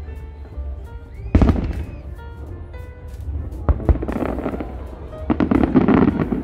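Fireworks shells bursting in the sky: a loud boom about a second and a half in, another sharp bang near four seconds, then stretches of rapid crackle from many small bursts, densest near the end. Music plays underneath.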